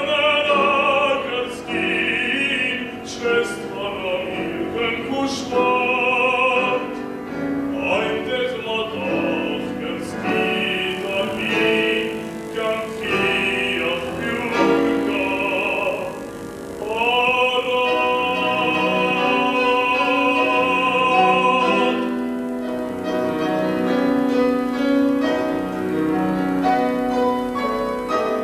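A young male classical singer sings in operatic style with vibrato, accompanied by an August Förster grand piano. He holds one long high note in the middle, then stops, and the piano carries on alone near the end.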